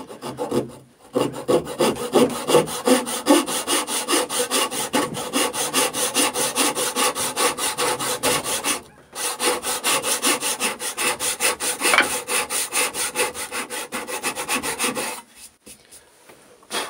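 Backsaw crosscutting a hardwood post in quick, even strokes, cutting the side of a joint along a knife wall. The sawing pauses briefly about nine seconds in and stops about fifteen seconds in.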